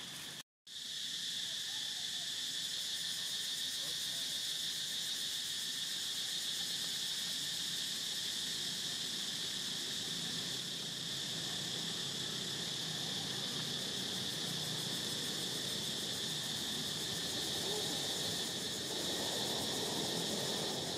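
Steady chorus of insects, a high-pitched drone holding one pitch, after a brief drop-out about half a second in.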